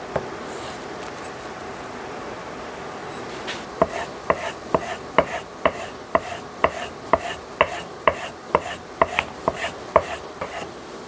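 Steel plane iron from a Stanley Bailey No. 5 being rubbed back and forth by hand on a diamond sharpening plate. After a few quiet seconds come quick strokes, about two to three a second, each ending in a sharp click with a brief metallic ring.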